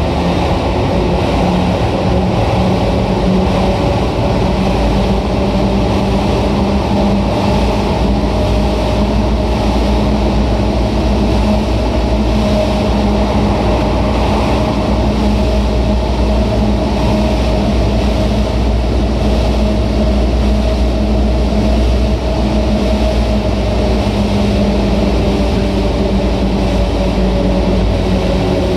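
Tokyu 8500 series electric train running at speed: a steady rumble of wheels and running gear with a sustained motor and gear hum that drifts slightly lower in pitch in the second half.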